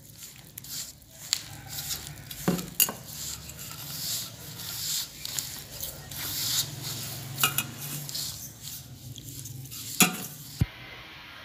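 Whole-wheat flour and soaked jaggery syrup being mixed by hand in a stainless steel bowl: the crumbly, wet dough rustles and squishes under the fingers, with a few sharp knocks against the steel bowl. Near the end the mixing stops and only a faint steady hiss remains.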